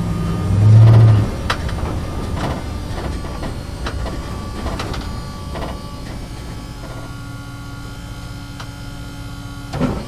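Truck driving inside a parking structure: its engine hum swells loudest about a second in, then scattered knocks and rattles sound over the next few seconds, and the engine settles into a quieter, steady hum in the second half, with one more knock near the end.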